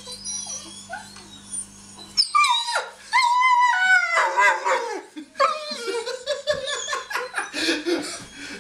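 Young brindle dog howling and whining: about two seconds in it breaks into loud cries that slide in pitch, holds one long howl, then goes on in a rapid run of overlapping whines and yips.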